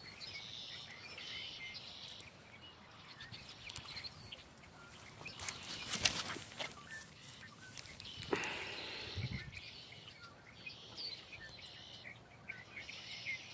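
Faint outdoor ambience with birds chirping on and off, broken by a few clicks and knocks; the loudest come about six and eight seconds in.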